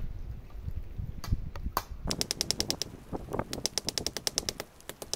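Hand hammer striking red-hot steel rebar laid on a stone used as an anvil: a few single knocks, then from about two seconds in fast runs of sharp, ringing taps, with a short break before the second run.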